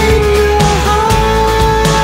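Background music with a long held melody note.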